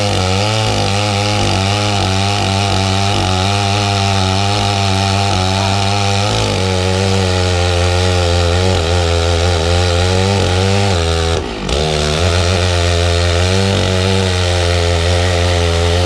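Two-stroke chainsaw running at high throttle, its pitch wavering as it cuts through eucalyptus wood. It drops off briefly about eleven seconds in, then picks up again.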